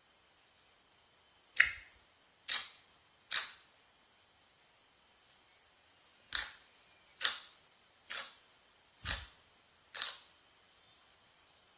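Glossy slime being handled, giving a series of eight sharp, separate pops at irregular intervals.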